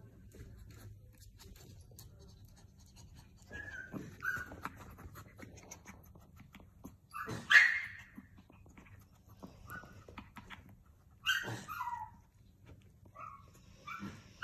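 Small dog giving short whines and barks in scattered bursts, about half a dozen calls, the loudest about seven and a half seconds in.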